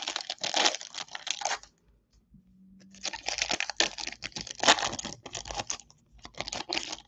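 Foil wrapper of a baseball card pack crinkling and tearing as it is ripped open by hand. It comes in two bouts of crackling, with a pause of about a second between them.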